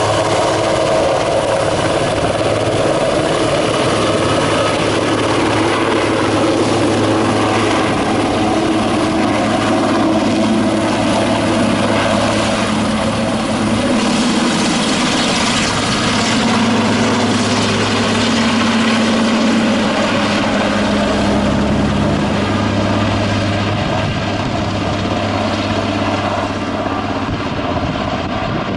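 Twin-turbine Super Puma helicopter running loud and steady: rotor and turbine noise as it lifts off and climbs away carrying a heavy underslung big bag of sand. The sound eases slightly over the last few seconds as it moves off.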